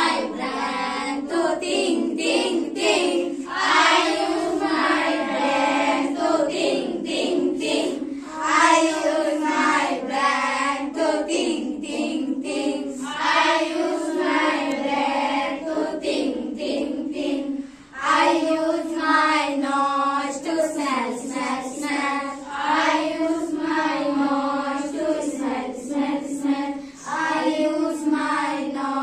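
A group of girls singing an English action rhyme together in chorus, with hand claps through the song.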